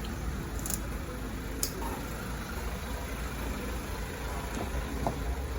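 A 2015 Mazda CX-5's engine idling steadily with the air conditioning running, a low, even rumble. There are a couple of faint clicks in the first two seconds.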